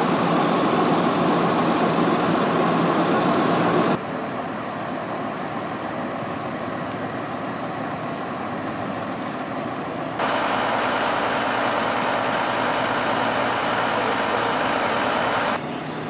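Fire truck engines running steadily at idle, a continuous mechanical drone. It drops abruptly in level about four seconds in, comes back louder and slightly different about ten seconds in, and drops again near the end.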